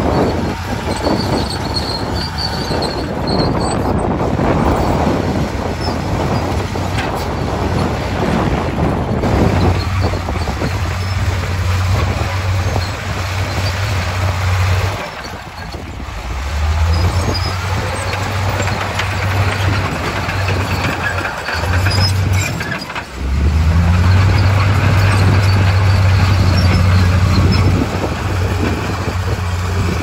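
Komatsu crawler bulldozer's diesel engine running under load as it pushes rocky soil. The engine note drops briefly twice, about halfway through and again a little later, and then comes back stronger and steadier.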